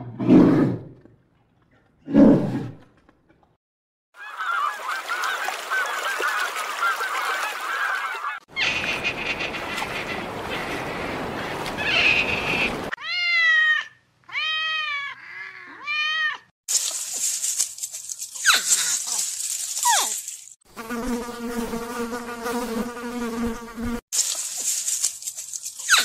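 A run of different animal calls, one clip after another: two short low grunts from brown bears at the start, a domestic cat meowing about four times midway, and other animal calls between and after, among them a long, steady, honk-like call near the end.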